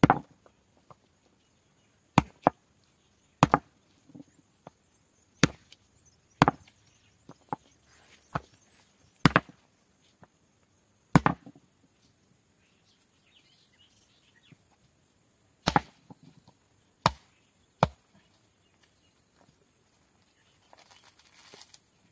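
A coconut struck again and again against a stone to crack it open for a puja offering: about a dozen hard, sharp knocks, one to two seconds apart, that stop about eighteen seconds in.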